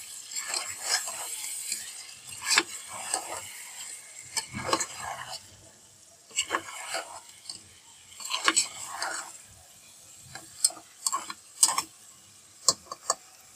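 A spatula stirring and scraping raw beef pieces through sizzling spiced onion-ginger-garlic masala in a metal cooking pot, the meat being seared and browned. The strokes come irregularly, and the sizzle dies down after about five seconds.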